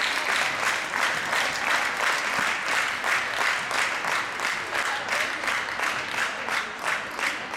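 Crowd applauding, a dense patter of many hands clapping that gradually dies down.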